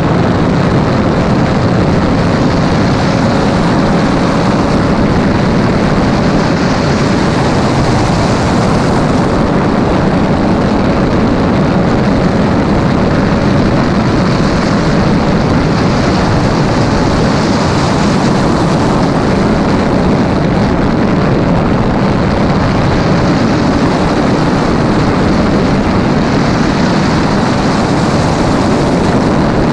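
Steady, loud rush of wind over a visor-mounted camera at racing speed, with the engine of a Honda-powered IndyCar running at high revs underneath as a thin, even engine note.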